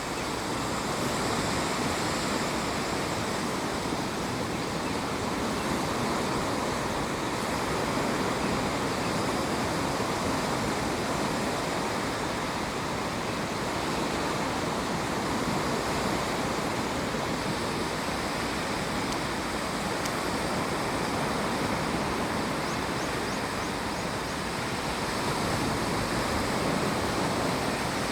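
Steady rushing of water, an even noise that hardly rises or falls.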